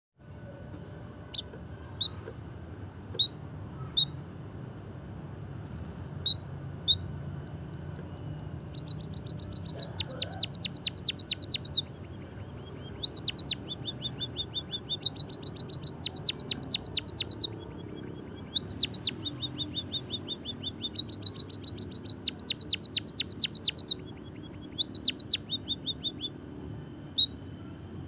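White-headed munia singing: a few scattered single high chirps, then from about nine seconds in a series of fast, high trilled phrases of quick sweeping notes, each phrase lasting one to three seconds.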